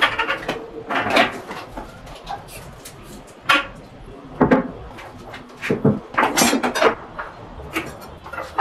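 Irregular metallic clatter and knocks as an aluminium stepladder is moved, set up and climbed, with things handled around it.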